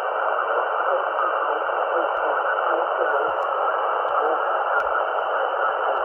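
ATS25X1 HF receiver in lower sideband on the 40 m band, its speaker giving a steady static hiss of band noise squeezed into a narrow voice-width channel. No station comes through clearly, a sign of the poor band conditions.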